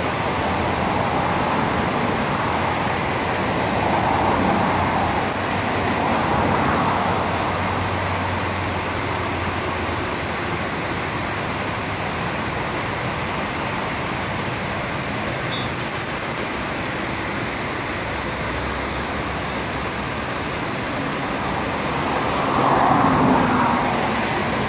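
Steady road traffic passing along the riverside road, swelling as individual cars go by, about 4 s, 6 s and near the end. A short run of high chirps sounds about two-thirds of the way through.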